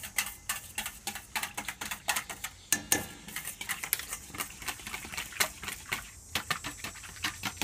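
Wire balloon whisk beating a soapy liquid in a stainless steel mixing bowl, the wires clinking against the metal several times a second.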